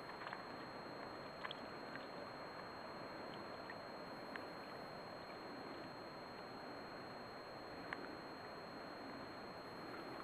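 Faint, steady lapping of small wind ripples at the stony edge of a loch, with a few faint ticks.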